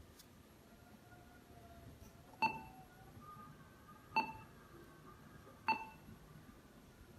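Three short, clinking touch-key beeps from an Android car head unit as its touchscreen is tapped, about one and a half seconds apart.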